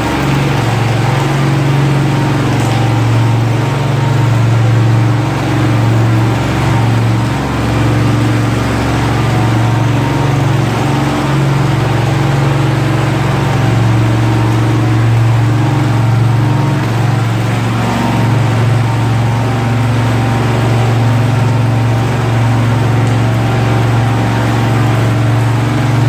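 Sewer hydro jetter's engine-driven high-pressure pump running steadily, a constant loud low drone.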